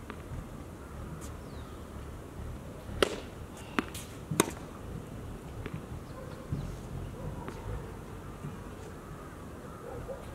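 Tennis ball struck by rackets and bouncing on a hard court during a warm-up rally: three sharp pops close together a few seconds in, then a few fainter ticks.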